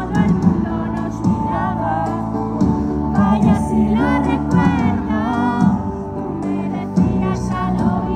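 Live pop song played through a venue's PA during a sound check: a sung vocal line over a band backing with a steady bass and drum beat.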